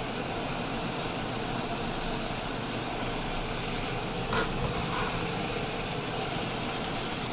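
Beef and onions sizzling steadily in a pot on high heat, with one brief knock about four seconds in.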